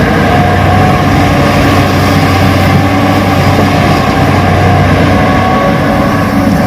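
RC Hitachi excavator running steadily: a constant low machine hum with a thin steady whine above it.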